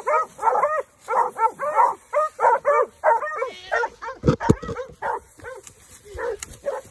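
Coonhounds barking rapidly and excitedly, about three barks a second, while fighting a raccoon they have caught on the ground. A few low thumps come about four seconds in.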